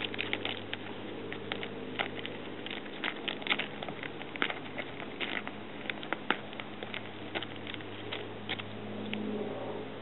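Irregular crackling clicks from a cat's claws scrabbling at the bark of a log and the dry grass, over the faint steady drone of a distant propeller training aircraft whose lowest tone fades after about three seconds.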